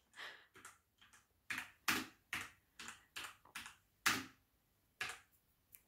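Rampage KB-RMW23 Scout mechanical keyboard with red switches being typed on: about a dozen uneven, separate keystrokes, two or three a second, as a name is typed slowly.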